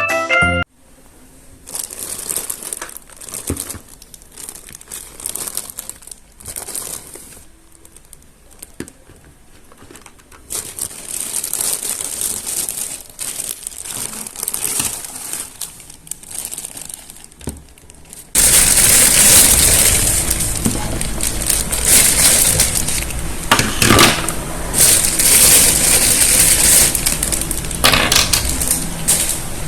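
Plastic toy packaging crinkling and rustling as it is unwrapped by hand, in irregular handling noises that become louder and more continuous about two-thirds of the way through.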